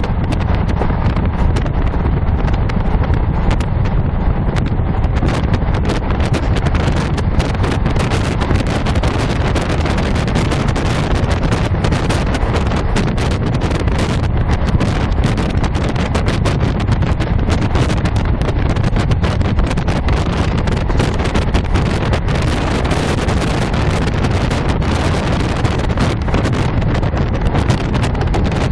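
Train running along the line, heard from inside the carriage: a steady rumble of wheels on rail with rapid clicking and clatter throughout.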